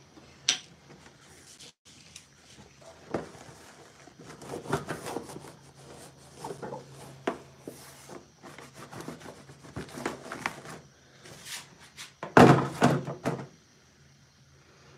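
Knocks, thuds and rustling from objects being handled close to a phone's microphone, with a loud burst of handling noise about twelve seconds in. A steady low hum runs underneath.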